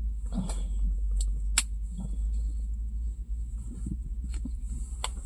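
A steady low rumble, with a few sharp clicks and soft handling noises over it.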